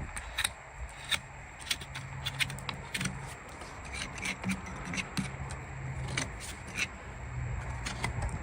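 Farrier's hand tools working on a horse's hoof: irregular clicks, snips and scrapes over a low steady hum.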